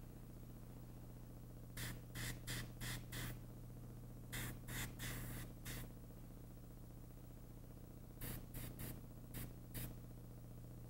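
Airbrush spraying paint onto a toucan bill in short puffs of hiss, in three runs of four to six quick bursts: about two seconds in, about four seconds in with one burst held a little longer, and from about eight seconds in. A steady low hum sits under it.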